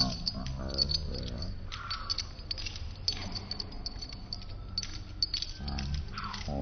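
Metal tags and leash hardware on a dog's collar jingling and clicking irregularly as the dog walks on a leash.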